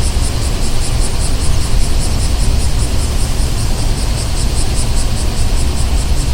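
Street ambience: a steady low rumble of passing traffic, with a high, rapidly pulsing buzz on top at about five pulses a second.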